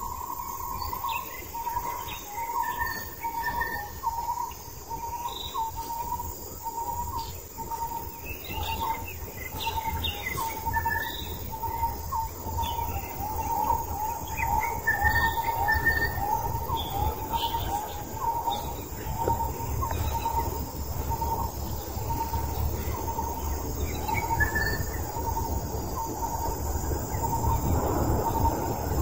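Outdoor ambience: an insect, likely a cricket, trilling in short regular pulses, with birds chirping on and off. A low rumble runs underneath and grows louder near the end.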